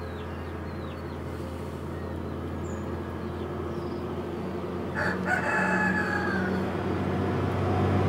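A rooster crows once, about five seconds in, over a few small high bird chirps early on. A steady low hum underneath grows louder toward the end.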